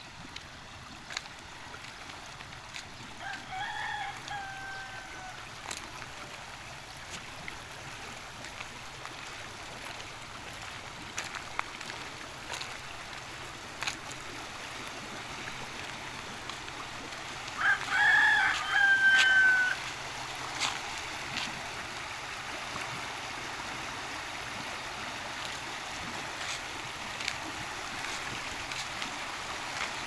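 Steady rush of fast-flowing muddy water in a small irrigation channel, with a rooster crowing twice: faintly a few seconds in, then much louder about eighteen seconds in.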